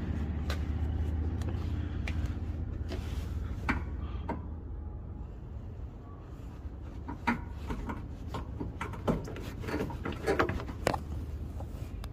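Scattered clicks and knocks of tools and parts being handled, most frequent in the second half, over a steady low mechanical hum.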